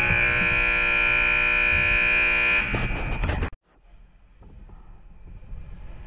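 Hockey arena horn sounding a loud, steady blare that stops about two and a half seconds in; a second later the sound drops out almost completely, then faint rink noise comes back.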